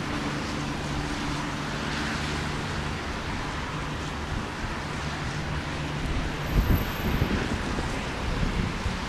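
Jet engines of a Boeing 747-400 freighter running as the aircraft touches down and rolls out on a wet runway: a steady rushing noise over a low hum. Wind buffets the microphone in gusts, most strongly about six and a half seconds in.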